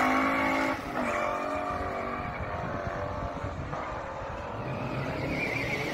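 Two stock muscle cars, a Studebaker among them, accelerating hard off the drag-strip line, engines revving up in pitch. The pitch breaks at a gear shift about a second in and again near four seconds, and the sound fades as the cars pull away down the track.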